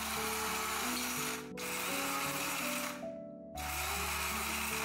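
Electric blade grinder pulsed three times, each run about a second and a half, with short pauses between, pulverising dried orange slices into powder.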